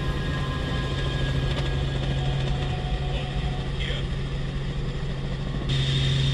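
Helicopter cabin noise: a steady engine and rotor drone with a strong low hum. It gets suddenly louder and brighter near the end.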